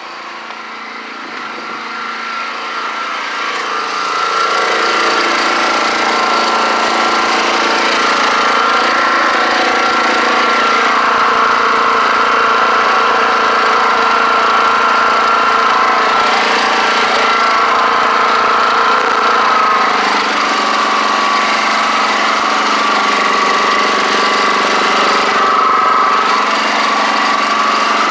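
WEN portable generator's engine running steadily with a continuous hum. It grows louder over the first few seconds, then holds steady, and its pitch dips slightly about twenty seconds in.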